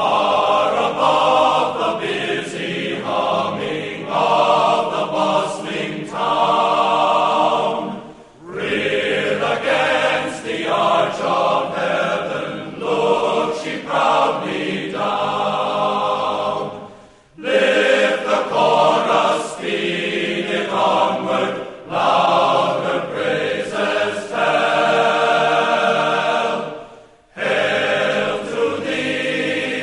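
A choir singing, in long phrases broken by short pauses about every nine seconds.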